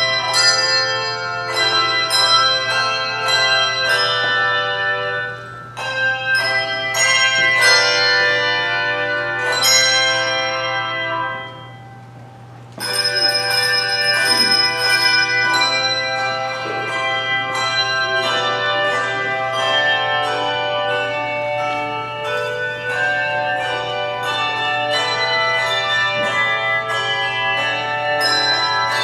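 Handbells played by an ensemble: many tuned bells struck in quick succession, each ringing on as it decays. About eleven seconds in the ringing fades away, and the playing starts again a little over a second later.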